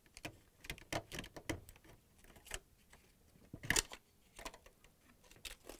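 Scattered small plastic clicks and knocks, the loudest a little before four seconds in, as flex connector plugs are unplugged from a dishwasher's electronic control board and its plastic control panel is handled.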